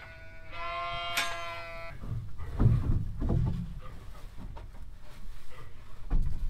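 A sheep bleats once, a single wavering call about a second and a half long. Low thumps and rumbling follow, the loudest of them about two and a half to three and a half seconds in.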